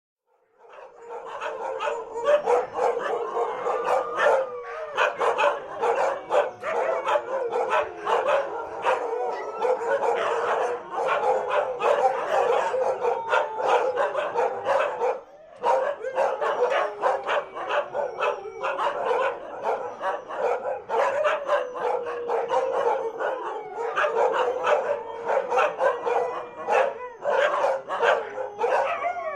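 A pack of Siberian huskies barking and howling together: sustained howls run under a constant clatter of short, sharp barks and yips.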